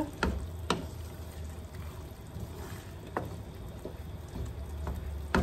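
Akabare chillies cooking in oil and lemon juice in a non-stick frying pan, stirred with a wooden spoon: a soft wet sizzling and bubbling, with a few knocks of the spoon against the pan.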